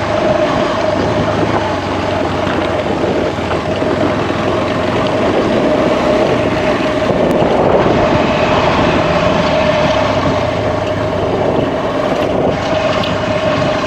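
Motorcycle being ridden at a steady pace: the engine runs evenly with a steady tone, under a dense rush of wind noise.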